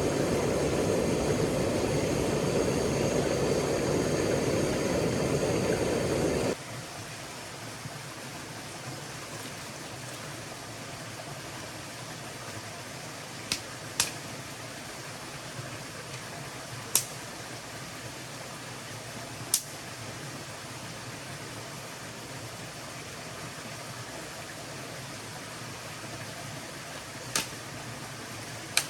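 Loud, steady rush of flowing stream water that cuts off abruptly about six seconds in. A quieter steady hiss follows, broken by a handful of sharp, widely spaced pops from a crackling wood campfire.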